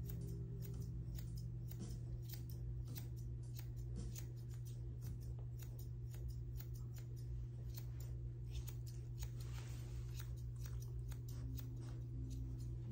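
Grooming shears snipping through a Bichon puppy's fluffed white coat, many quick, crisp clicks at an uneven pace as the underline is scissored.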